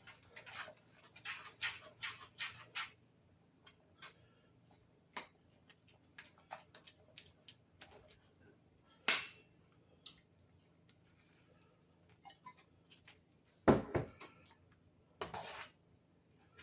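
Kitchen utensil sounds while seasoning gravy: a quick run of about seven ticks as salt and pepper go in, then scattered clicks of a spoon against the pan, with a sharper knock about 14 seconds in and a short rattle just after.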